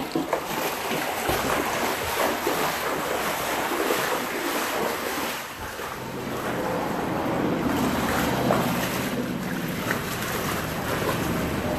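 Floodwater sloshing and splashing around the legs of people wading through it, a continuous wash of water noise.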